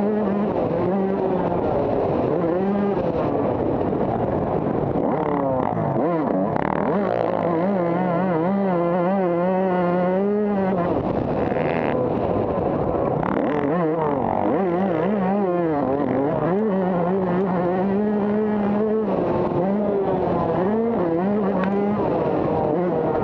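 Motocross bike engine heard from on board, revving hard and falling off again and again as the rider accelerates, shifts and backs off around a dirt track.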